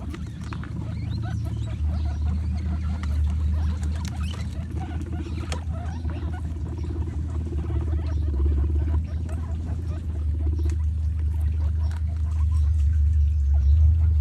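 Several guinea pigs chewing leafy greens and watermelon: a dense run of small crunching and clicking bites over a steady low hum.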